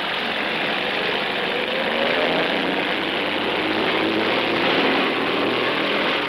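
Bulldozer engine running heavily as it pushes earth, the engine note rising briefly about two seconds in.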